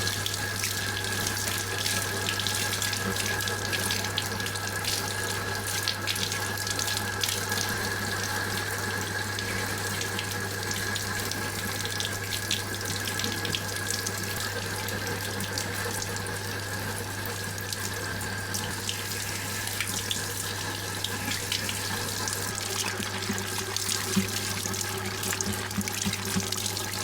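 Water running steadily from a tap or sprayer and splashing onto hair and into a basin as the hair is rinsed, with a faint steady high tone running alongside it.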